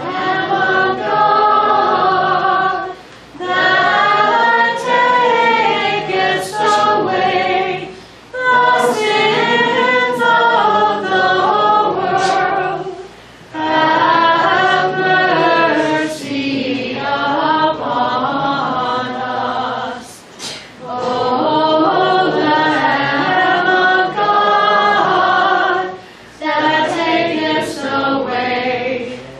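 A group of voices singing a liturgical hymn unaccompanied, in phrases of a few seconds with short breaks for breath between them.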